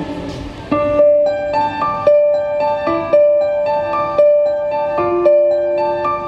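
Piano sound from a Korg Kronos X keyboard workstation played live: a repeating broken-chord figure, a new chord about every second with single notes rippling between, with no voice over it. The notes start a little under a second in, as the last sound of the previous phrase dies away.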